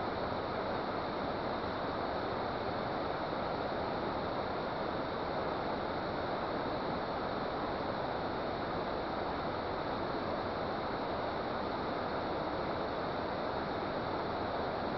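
Steady rush of water pouring from a dam: an even hiss that holds level with no breaks.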